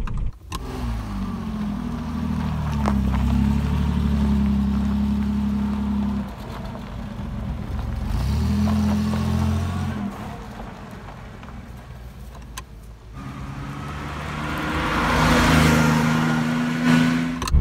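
AC 3000 ME's mid-mounted 3.0-litre Ford Essex V6 pulling away and accelerating, heard from inside the cabin, the revs climbing and then dropping at gear changes about six and ten seconds in. From about thirteen seconds in the car is heard from the roadside as it drives past, its sound swelling and then fading near the end.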